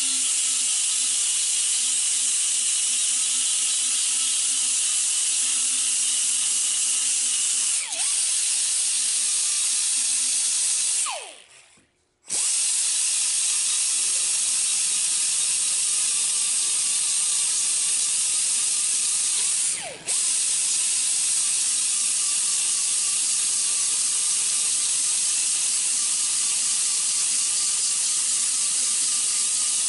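Small handheld power sander running with a coarse sanding pad against a transmission valve body plate, grinding off old bonded gasket material. It runs with a steady high hiss and whine, briefly lets off twice, and about eleven seconds in winds down with a falling pitch to a stop before starting up again.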